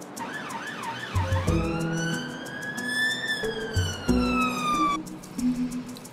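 Emergency vehicle siren: a quick up-and-down yelp for about a second, then one slow wail that rises and falls and cuts off about five seconds in. Plucked guitar and bass music plays underneath.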